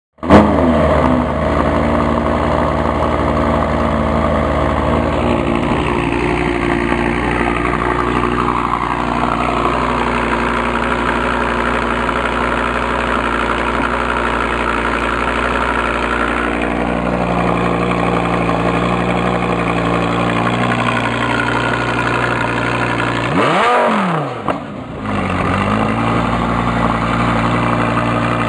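Sports car engine starting with a sharp loud burst of revs, then idling steadily with a deep even note and a few throttle blips that fall away. Near the end the engine note sinks and then climbs back into a fresh idle.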